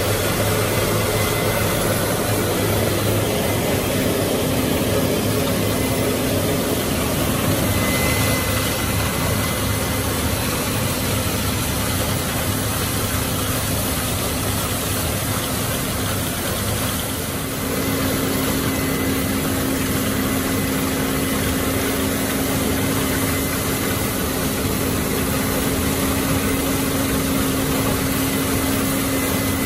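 Steady drone of a tractor engine and a Case IH Axial-Flow combine harvester working close alongside, heard from inside the tractor cab. The engine hum shifts and steadies slightly about 17 seconds in.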